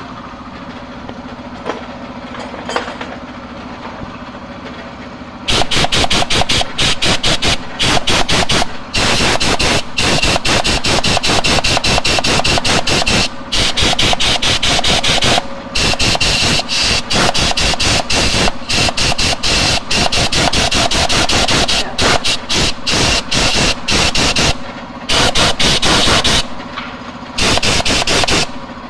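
Compressed-air tool running in loud, hissing bursts with short pauses, over a steady workshop hum.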